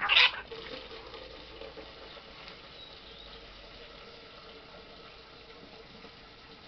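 A short loud splash-like noise right at the start, then water running steadily into an outdoor wash basin.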